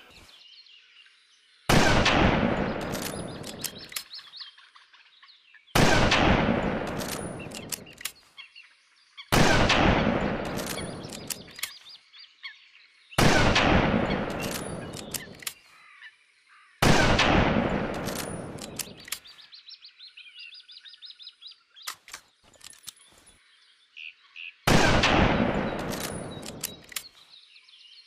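M40 bolt-action sniper rifle in 7.62×51mm firing six single shots a few seconds apart, each a sharp crack that rolls away in a long echoing tail. Short sharp clicks fall in the gaps between shots.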